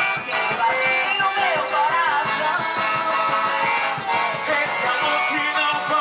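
Upbeat festa junina quadrilha music playing loud with a steady, quick beat and a rattling shaker-type percussion, with pitched melody lines gliding over it.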